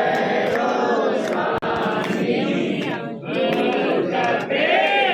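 Many voices chanting together in a devotional chant, with a few short sharp clicks through it.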